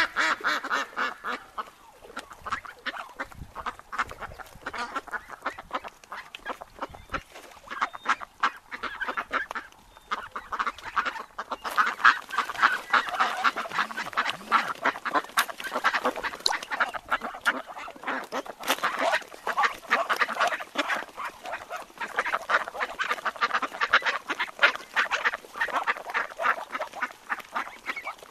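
A flock of wild ducks quacking, many calls overlapping in a constant chatter.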